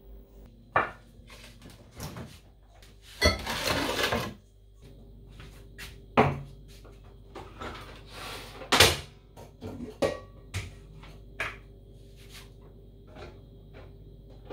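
Kitchen handling noises: scattered knocks and clatters as a plastic food container and a bowl are handled on the counter and an electric contact grill is opened, with a longer scraping rustle about three seconds in, over a faint steady hum.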